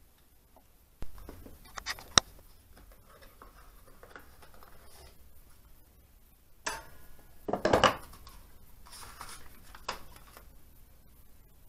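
Metal engine parts and tools being handled and set down: a knock about a second in, a sharp metallic click soon after, then a clatter of clinks with a brief metallic ring in the middle and one more knock near the end.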